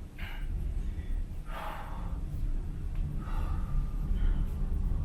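A person breathing hard in short gasping breaths, three of them about a second and a half apart, over a steady low rumble.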